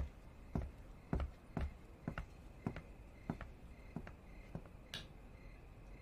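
A series of soft, short knocks, about two a second at an uneven pace, over a faint steady high-pitched trill.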